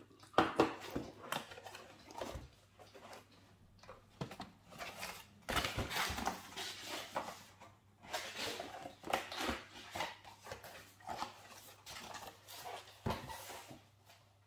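Plastic packaging rustling and crinkling, with a few small clicks and knocks, as a power adapter and its cable are unwrapped and handled.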